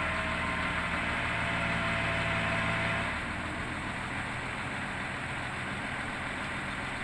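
Heavy diesel engine running steadily; about three seconds in its note eases down and turns rougher.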